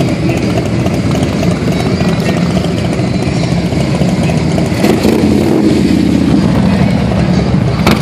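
A group of V-twin touring motorcycles idling together in a low, steady rumble. One engine swells louder about five seconds in, and a sharp click comes near the end.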